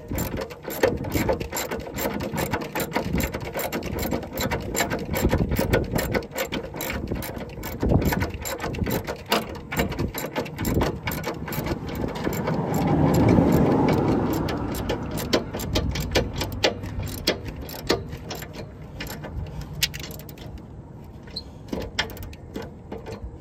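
Hand ratchet wrench clicking rapidly as the mounting nut of a replacement semi-truck air spring is tightened down, the clicking thinning out near the end. A low rushing sound swells and fades about halfway through.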